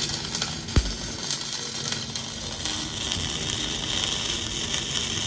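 Dual-shield (gas-shielded) flux-cored welding arc from a Millermatic 255 running on 75/25 gas as a steady crackling hiss, laying an overhead root pass. A single sharp pop comes about a second in.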